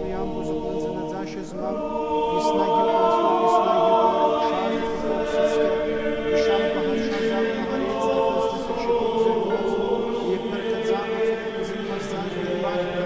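Small mixed choir of men and women singing Orthodox liturgical chant unaccompanied, the voices holding long notes in harmony and growing louder about two seconds in.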